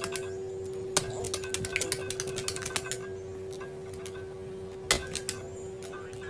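A dog's claws tapping on a tablet's glass screen as it paws at a game: sharp clicks, a quick flurry about a second in and a few more near the end, over a steady hum.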